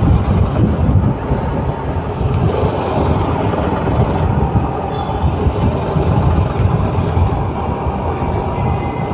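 Bajaj Pulsar RS200 motorcycle being ridden at steady town speed, heard from a helmet-mounted microphone: wind buffeting on the mic over the engine's running note.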